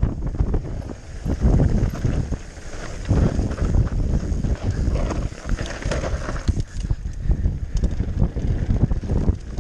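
Mountain bike riding down a rough, wet trail: wind buffeting the microphone over tyre noise and a run of irregular knocks and rattles from the bike.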